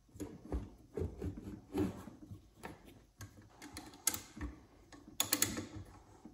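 Socket ratchet clicking in short runs, with metal clinks and knocks, as the bolts holding a ring gear onto a snowmobile clutch are tightened by hand.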